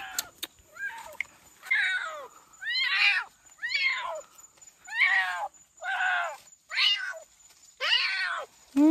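Kitten meowing over and over, about seven loud cries roughly a second apart, each falling in pitch: the distress cries of a kitten caught in a mouse trap. A few sharp clicks come just before the cries begin.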